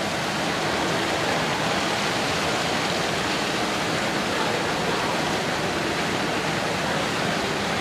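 Fountain jets splashing steadily into the fountain's basin: an even, unbroken rush of falling water.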